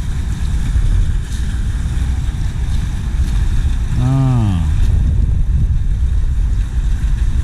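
Wind buffeting the microphone over the steady rush of water from an infinity water fountain, with a short voice sound about four seconds in.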